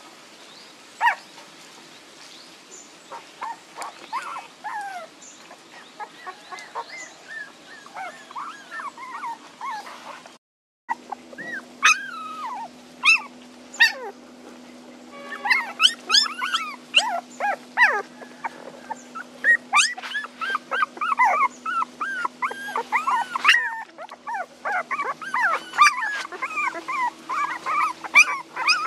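A litter of young puppies whimpering and crying in short, high squeaky calls, the distress crying of puppies wanting their mother. The calls are scattered at first, break off in a brief silence about ten seconds in, and then come thick and overlapping from several pups at once.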